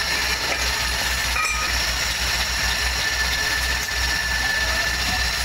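Steady mechanical hum of a running motor or machine, with a pulsing low drone and a few steady high tones, and one short click about a second and a half in.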